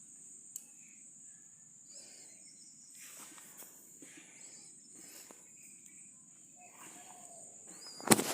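Insects, likely crickets, droning steadily at a high pitch, with a few faint chirps; about eight seconds in, a sudden loud burst of rustling and knocks.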